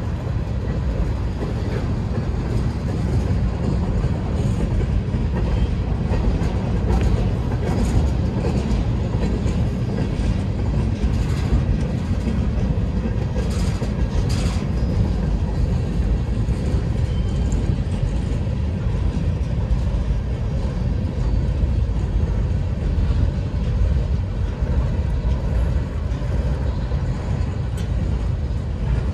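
Freight cars of a mixed freight train rolling past close by: a steady rumble of steel wheels on the rails, with a few brief clanks and squeals, the loudest about halfway through.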